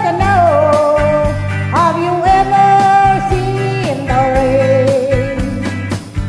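Country-rock song: a lead voice sings long held notes over guitar, bass and a steady drum beat.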